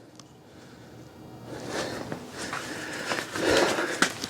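A Jeep's front wheel rocked back and forth by hand, scuffing, with a few short knocks, louder from about a second and a half in. The knocks come from play in a worn wheel hub bearing.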